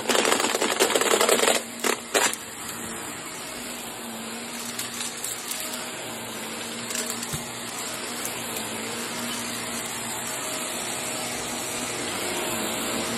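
Upright vacuum cleaner running over carpet. For the first two seconds it crackles and rattles loudly as debris is sucked up, with a few short rattles after; then it settles into a steady motor hum that slowly grows louder.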